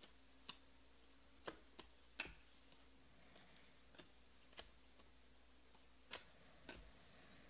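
Glossy Panini Prizm baseball cards clicking faintly as they are slid off a stack one by one, about eight light, irregular clicks.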